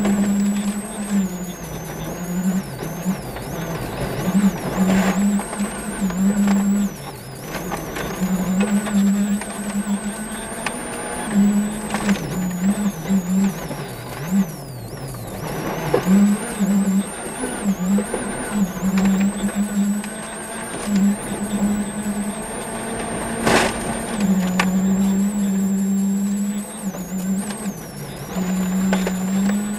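Turbocharged 1.6-litre World Rally Car engine at high revs, heard inside the cabin, its note cutting and resuming over and over with quick gear changes, a high whine riding above it. Gravel and bumps rattle and knock against the car, with one sharp knock about three-quarters of the way through.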